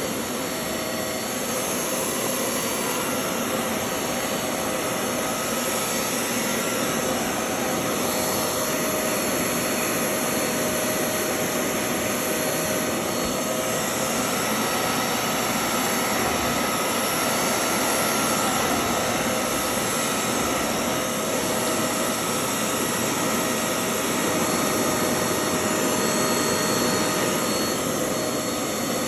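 Hoover Clean Slate portable spot cleaner's suction motor running steadily, a whining hiss, as it extracts dirty water out of a carpet stain.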